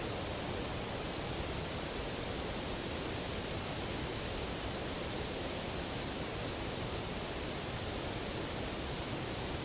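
A steady, even hiss like recording static, with no knocks, calls or other distinct sounds standing out.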